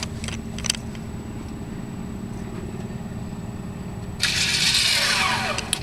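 Rear electromechanical parking-brake motor of an Audi A4 B8, driven straight from a 12V jump pack, running with a steady hum after a couple of clicks as the leads are connected. About four seconds in it turns into a louder whirring whose pitch falls as the motor labours, because it is driving the wrong way and clamping the pads, then cuts off.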